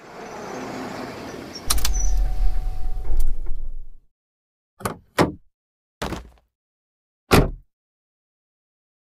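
A rumbling, scraping sound builds, turns loud and deep about two seconds in, and stops suddenly about four seconds in; then four short separate hits follow at uneven intervals.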